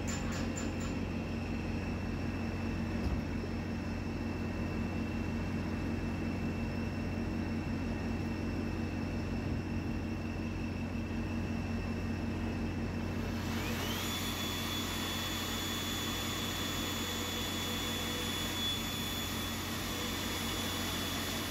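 Magnetic drill's electric motor running steadily with a low hum as its twist bit cuts into a steel block. About two-thirds of the way through, its whine rises in pitch and turns brighter, then holds.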